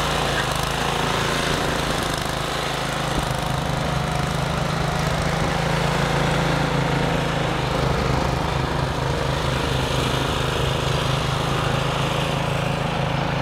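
Gasoline snowblower's small engine running steadily at a constant pitch as it is pushed through deep snow.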